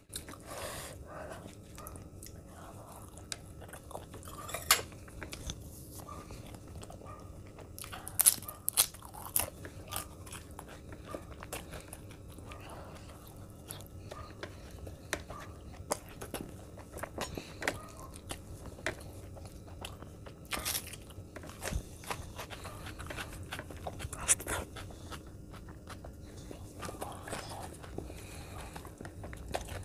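Close-up eating sounds: a person chewing mouthfuls of rumali roti dipped in curry and tearing the roti by hand on the plate. Sharp mouth smacks and clicks come now and then, the loudest about 8 to 9 seconds in and again around 21 and 24 seconds.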